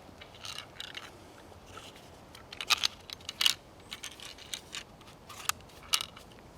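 Irregular sharp clicks, snaps and short crunches, a dozen or so scattered unevenly, the loudest about three seconds in: gear or wood being handled.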